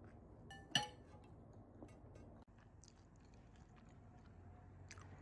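Quiet eating sounds: faint chewing with small clicks, and one short, light clink of tableware about a second in.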